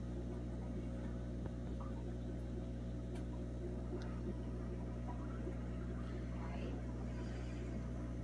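Steady low hum of running aquarium equipment, with a few faint clicks.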